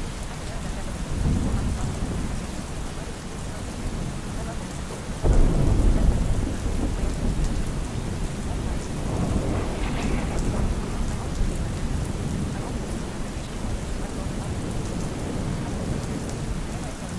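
Steady rain with rolls of thunder: a low rumble about a second in, a sudden louder clap that rumbles on for a couple of seconds about five seconds in, and another roll around ten seconds.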